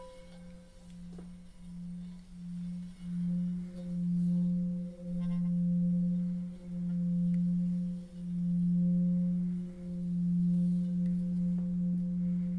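Large etched singing bowl tuned to F3 (177 Hz), sung by circling a wrapped mallet around its rim after a single strike: a steady low hum that swells over the first few seconds and throbs slowly in a wah-wah pulse, with fainter higher overtones above it. Near the end the throb turns to a quicker wavering as the bowl rings on.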